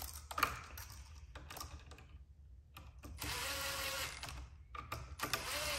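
Milwaukee Fuel cordless driver spinning the terminal screws of a switch down in short runs: a brief burst near the start, a run of about a second and a half in the middle, and another short burst near the end.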